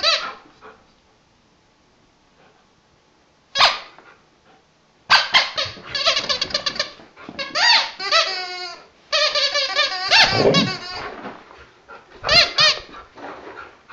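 Red squeaky dog toy squeaking again and again as the dog bites and shakes it: a quiet stretch, one squeak, then rapid runs of squeaks from about five seconds in, with a lower, rougher sound around ten seconds in.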